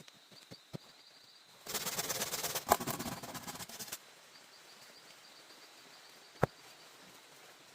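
A burst of rustling and crackling lasting about two seconds with a sharp knock in the middle, then a single sharp knock later on. Faint high insect chirping runs underneath.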